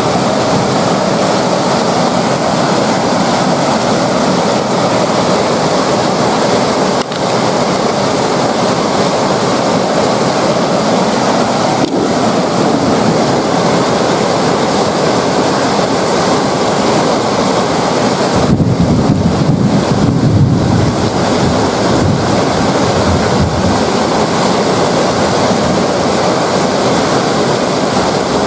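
Heavy rain pouring steadily onto paving and puddles, a dense even hiss. About two-thirds of the way through, a low rumble of wind on the microphone swells for a few seconds.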